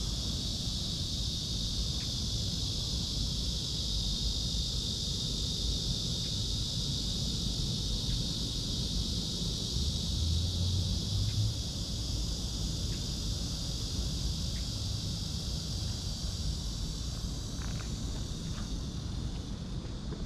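Steady chorus of insects, an unbroken high-pitched buzz, over a low rumble.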